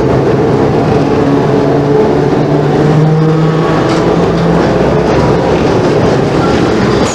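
Hong Kong double-decker electric tram running along its track: a steady loud running noise with a low hum underneath.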